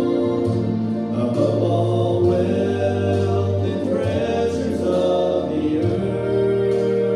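A man singing a slow worship song, with sustained accompaniment chords that change about every two seconds.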